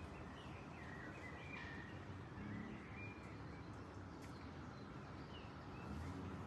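Birds chirping over running water: short high chirps and brief whistles come and go every second or so above a faint, steady low rush of water.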